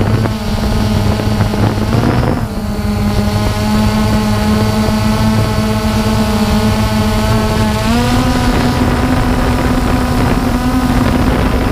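DJI Phantom 2 quadcopter's motors and propellers whirring steadily in flight, with rumbling wind noise. The pitch shifts about two and a half seconds in and steps up about eight seconds in as the throttle changes.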